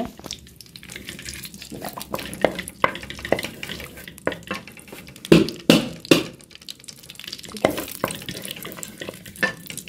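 Cumin seeds and whole spices sizzling in hot oil in an aluminium pot, with a spoon stirring and scraping against the pot in short strokes. The loudest strokes come about five to six seconds in.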